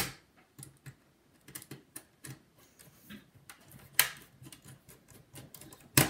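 Scattered small ticks and clicks of a precision screwdriver bit turning a screw into a laptop's plastic base cover. A few sharper plastic clicks stand out, the loudest about four seconds in and at the end.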